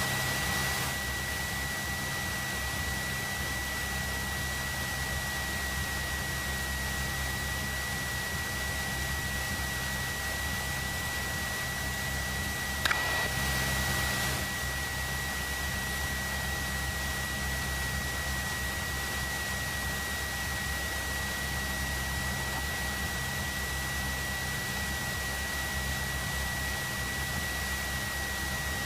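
Cessna 172's engine running steadily at idle, a low drone under a hiss, with a thin steady whine above it. A click and a short burst of noise come about 13 seconds in.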